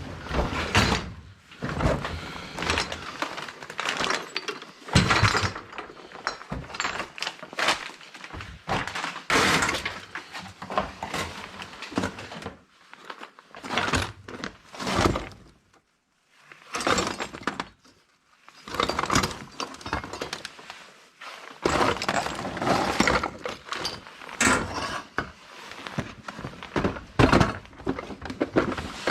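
Metal hand tools clattering and clunking as they are rummaged through and sorted, a run of irregular knocks and rattles with a few short pauses.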